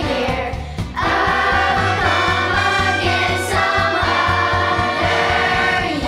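Children's choir singing over an instrumental accompaniment with a steady low beat, with a short break between phrases just before a second in.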